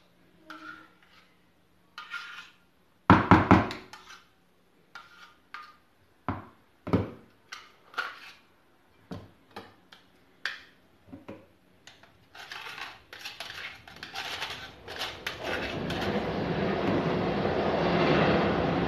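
Metal potato ricer knocking and clinking against a plastic tub as boiled potatoes are pressed through it, loudest in a clatter about three seconds in. From about twelve seconds in, the noise of a passing train rises and grows loud.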